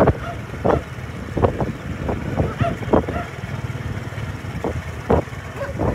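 Footsteps on a concrete path, a step roughly every half to one second, over a steady low rumble.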